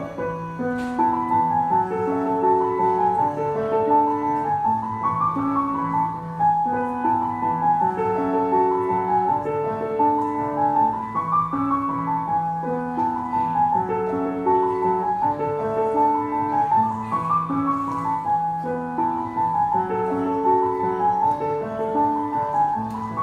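Grand piano played solo: a melody over a steady accompaniment of lower notes, moving at an even pace.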